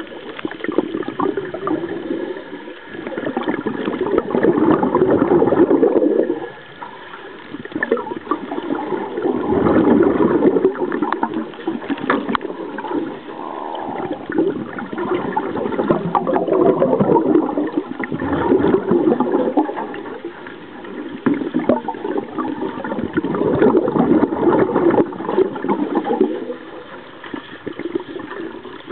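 Scuba regulator exhaust bubbles gurgling underwater, a surge of bubbling every few seconds with each exhalation.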